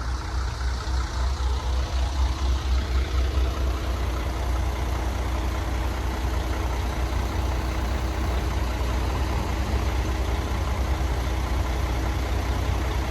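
Heavy engine of the crane truck idling steadily, a low pulsing hum.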